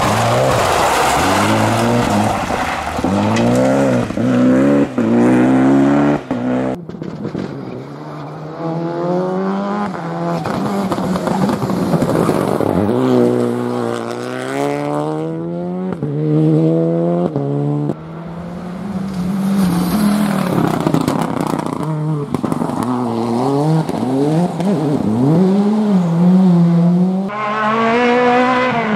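Rally cars driven hard through bends one after another, the engine notes climbing and dropping repeatedly as they accelerate and lift.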